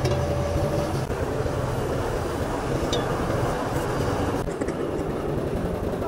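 Bulldozer's heavy diesel engine running steadily with a low hum; the sound shifts about four and a half seconds in.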